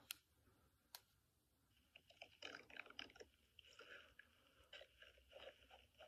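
Near silence, with two faint clicks in the first second and soft scattered noises after.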